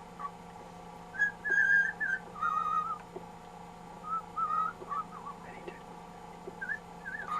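Cockatiel whistling a string of short, warbling phrases, the loudest about a second in, with quieter ones through the rest.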